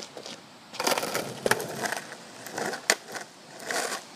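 Footsteps scuffing over a concrete path scattered with dry leaves, with a sharp knock near three seconds in.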